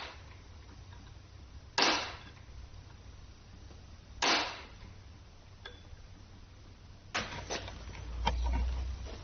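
Three sharp, loud knocks about two seconds apart, typical of hammer blows in an engine teardown, followed near the end by a run of lighter metallic clicks and clatter.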